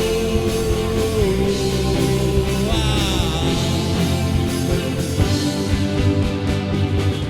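Rock band playing an instrumental passage: a guitar holds a long note, then a note bends downward about three seconds in, over bass and drums.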